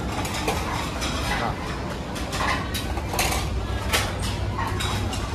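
Busy restaurant din: dishes and cutlery clinking again and again over background chatter and a steady low hum.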